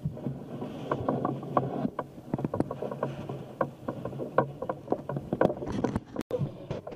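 On-board sound from a motorboat: a low steady hum with frequent irregular knocks and clatter, plus wind on the microphone. The sound drops out for a moment near the end.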